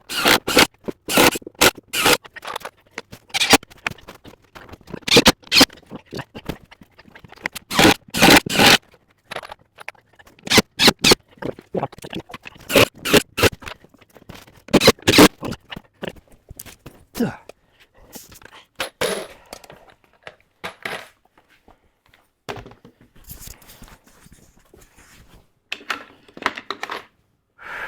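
A run of short, sharp scrapes and knocks from work at a workbench, coming quickly for the first fifteen seconds or so, then fewer and fainter.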